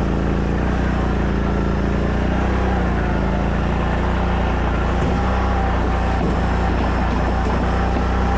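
An engine running steadily, a constant low drone with a hum.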